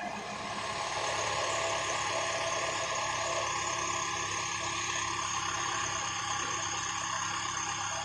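Case 580 Super L backhoe loader's diesel engine running steadily.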